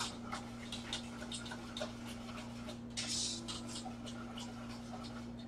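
Light clicks and taps of kitchen utensils against pots and dishes at the counter, over a steady low electrical hum, with a brief hiss about three seconds in.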